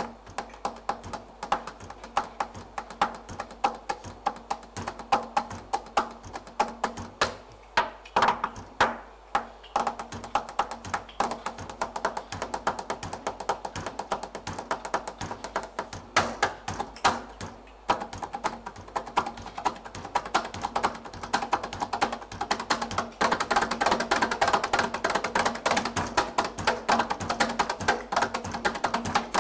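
Darbuka (goblet drum) played with fast, dense finger strikes: a continuous run of rapid taps with louder accents here and there, growing busier and louder near the end.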